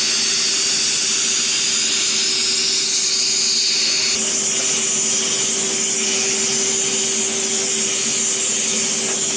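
Eureka Forbes Xforce vacuum cleaner motor running steadily in blower mode: a loud rushing of air over a steady motor hum. About four seconds in, the pitch of the airflow hiss shifts slightly.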